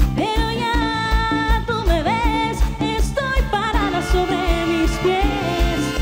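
Live dance band playing an instrumental passage with no sung words, over a steady kick-drum beat. Sustained melodic lines run above the beat, some of them sliding up and down in pitch.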